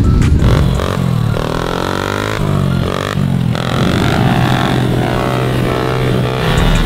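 Several small pit bike engines revving, their pitch rising and falling again and again as the riders accelerate.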